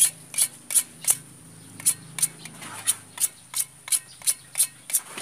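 Hacksaw cutting through a blue PVC pipe: quick back-and-forth rasping strokes, about three a second, with a short pause about a second in.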